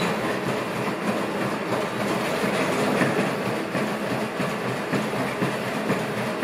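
ANYmal B four-legged robot stepping: steady mechanical noise from its electric joint drives and feet.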